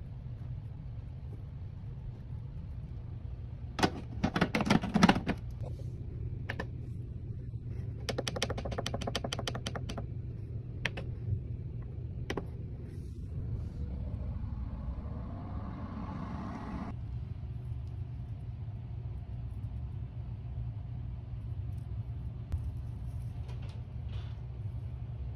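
Plastic clatter as a Hamilton Beach food dehydrator and its trays are handled, loudest about four seconds in. A quick run of clicks follows around eight to ten seconds as the control-panel buttons are pressed, all over a steady low hum.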